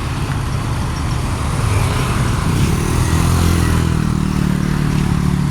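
A motor vehicle's engine runs close by, a low steady drone that grows louder about halfway through, over a hiss of traffic.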